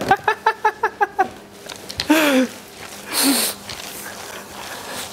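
A man laughing in a quick run of about ten short, high 'ha' pulses over the first second, followed by a single falling vocal sound about two seconds in and a breathy, wheezing burst a second later.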